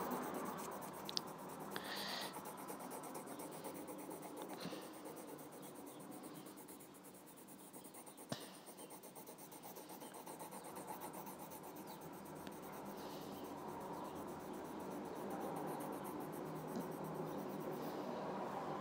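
Graphite pencil shading on squared paper: a faint, continuous scratching rub of pencil lead on the page, with a single sharp tick about eight seconds in.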